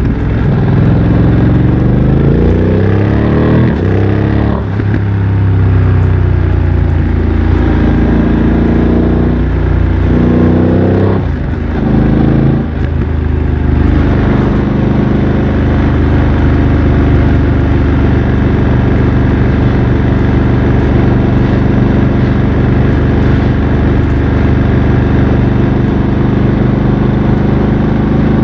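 BMW F900 XR parallel-twin engine through a MIVV X-M1 aftermarket exhaust, accelerating hard with the revs climbing and falling sharply at quick upshifts about four seconds in and again around eleven to thirteen seconds in. It then settles into a steady, even cruise.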